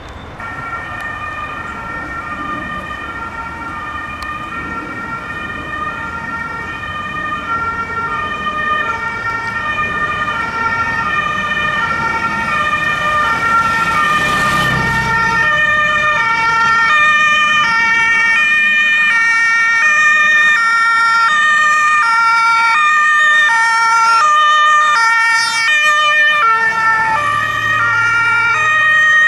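Several fire engines' German two-tone sirens (Martinshorn) sounding at once and out of step with each other, each switching back and forth between two pitches. They grow louder as they approach.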